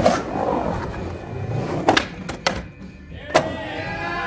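Skateboard riding in a concrete pool, with a cluster of sharp knocks and clacks about two seconds in and one more just before the end, over music playing in the background.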